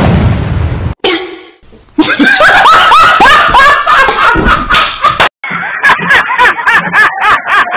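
A person laughing hard in quick, repeated bursts, with many sharp hand claps or slaps mixed in.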